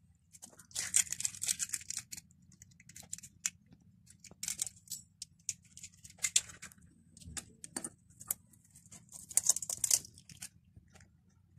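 Eggshells cracking and crackling in the hands as two eggs are broken open and their whites separated from the yolks: several clusters of short, sharp crackles of shell.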